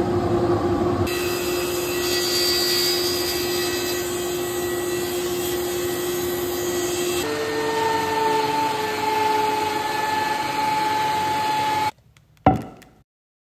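Woodshop power saw, a table saw among them, running and cutting rough-cut lumber: a steady motor and blade noise whose tone shifts twice. Near the end it cuts off abruptly and a single sharp knock follows.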